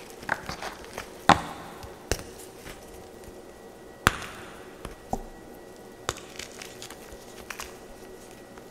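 Blocks of blue-dyed gym chalk snapping and crunching as they are broken apart by hand over crumbled chalk and cloud soap: a handful of sharp cracks about a second apart, with soft crumbling between.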